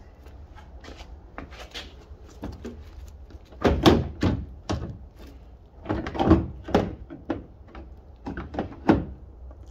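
An aftermarket LED taillight assembly knocking and clunking as it is pushed and seated into a Ford F-150's taillight pocket, in a series of irregular knocks. The loudest come about four seconds in, again around six to seven seconds, and near the end.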